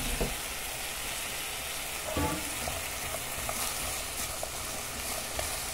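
Sliced okra frying in lard in a pan, a steady sizzle, with a spatula stirring through it and knocking lightly against the pan a few times.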